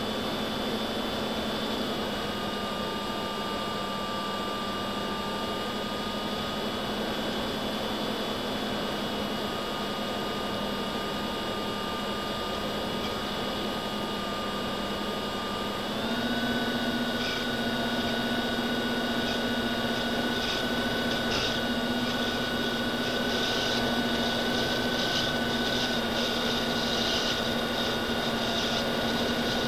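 Electric motor and propeller of an FPV aircraft, recorded by its onboard camera: a steady whine that steps up slightly in pitch and gets louder about halfway through as the throttle is raised, with some wind rush.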